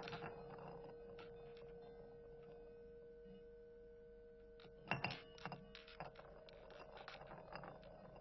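Quiet contemporary percussion music: a soft, sustained ringing tone held under scattered light clicks and taps on bowls and small objects, with a louder cluster of taps about five seconds in. The lower tone fades out around that point while a higher one rings on.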